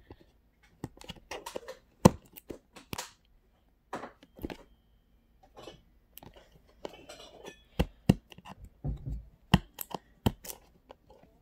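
Fingers and a fingernail prying and scraping at the edge of a cardboard Samsung Galaxy S10 box, giving a string of irregular clicks, taps and small knocks.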